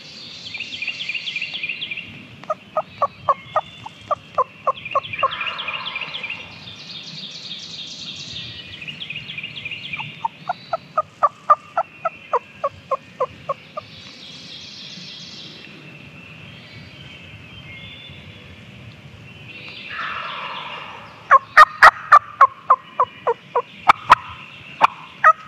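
Turkey calling in three runs of evenly spaced notes, about four a second, the last run near the end the loudest. Songbirds sing throughout.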